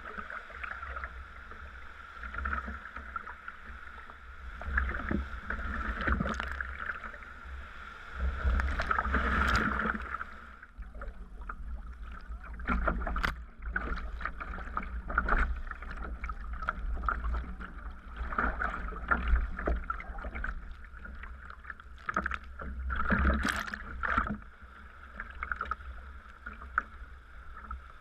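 Sea kayak being paddled: the paddle blades dip and splash in the water at irregular moments over a continuous wash of water against the hull, with a low rumble of wind on the microphone.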